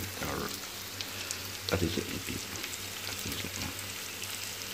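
Food sizzling in a hot cooking pot: a steady frying hiss with fine crackles.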